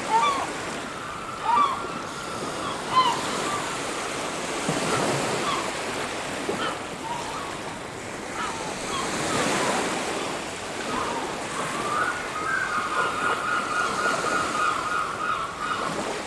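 Surf washing steadily onto a beach, with birds crying over it: short single calls in the first few seconds and a quick run of repeated notes from about twelve seconds in.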